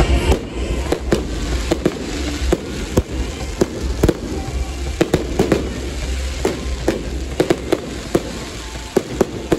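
Fireworks display: an irregular run of sharp bangs and crackling pops, several a second, over a low rumble.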